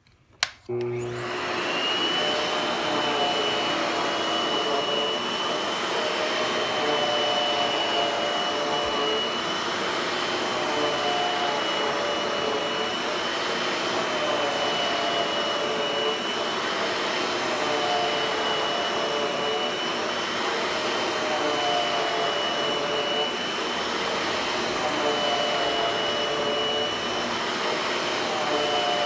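Hoover Hushtone vacuum cleaner switched on with a click, its motor spinning up to a steady whine with a high tone. It runs on low power while vacuuming flour from carpet, with a regular rise and fall in pitch about every two seconds.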